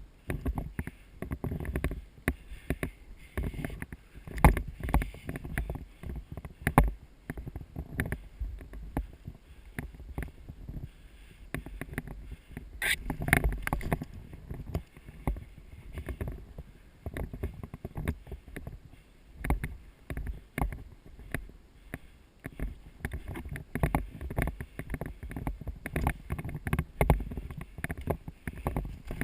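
Irregular rustling, knocks and thumps of a player moving about with gear, heavy in the low end. One sharp click comes about 13 seconds in.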